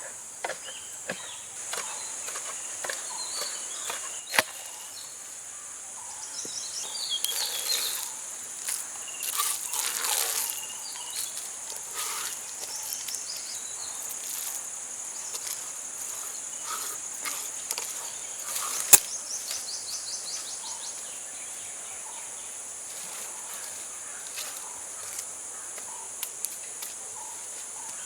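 Steady high-pitched chorus of insects, crickets or cicadas, with scattered light clicks and knocks; two sharper knocks stand out, about four seconds in and about two-thirds of the way through.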